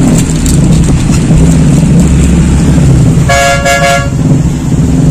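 Street traffic: a vehicle engine running with a steady low rumble, and a vehicle horn sounding once, for under a second, a little over three seconds in.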